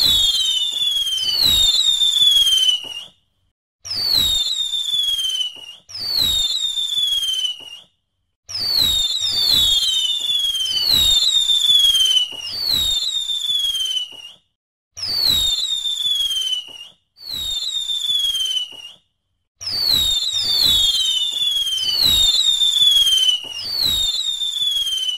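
Firework rockets launching one burst after another, about nine times. Each burst lasts about two seconds and holds a few whistles falling in pitch over crackling and pops, with short silent gaps between bursts.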